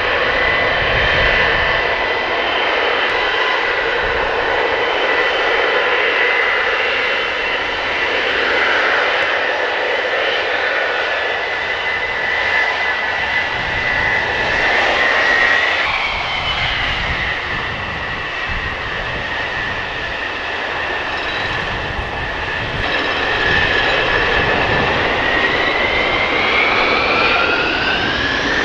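Boeing 707's jet engines running with a steady rumble and whine; near the end the whine rises in pitch as the engines spool up.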